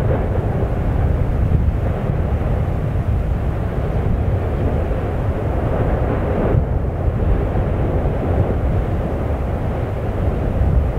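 Steady deep rumbling of the Fagradalsfjall volcano erupting, as lava spatters from the crater.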